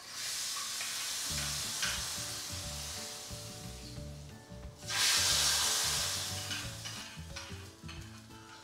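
Hot tempering of onion, garlic and chilli powder fried in coconut oil sizzling as it is poured onto dal curry. The sizzle comes in two waves: the first fades over a few seconds, and a second, louder one starts about five seconds in and fades away.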